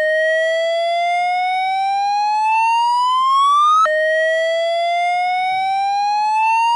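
Fire alarm sounding a slow whoop: a loud tone slides steadily upward for about four seconds. It drops back abruptly and starts rising again.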